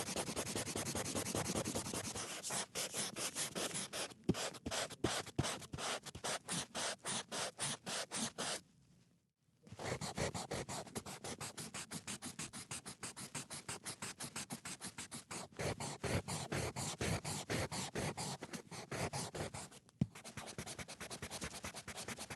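Pencil eraser rubbing on paper in quick back-and-forth strokes, several a second, with a pause of about a second midway.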